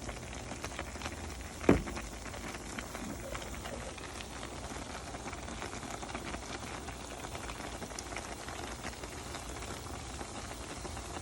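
A pot of collard greens and turkey necks simmering: a steady bubbling crackle with faint ticks, and one sharp click about two seconds in.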